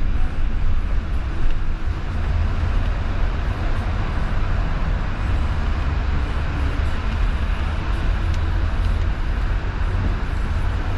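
Steady road noise inside a moving car's cabin: a deep, even rumble of engine and tyres with a light hiss from the wet street.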